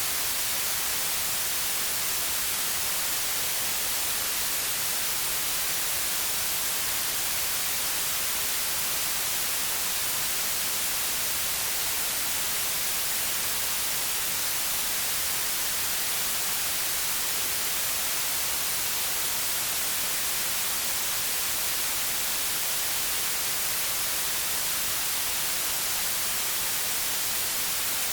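Synthetic white noise: a steady, even hiss that does not change.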